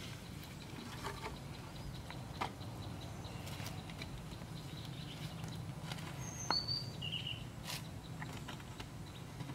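Scattered light knocks and clacks of wooden poles being handled and laid at a pen gate. About six seconds in, a bird gives three short chirps, each lower than the one before. A low steady hum runs underneath.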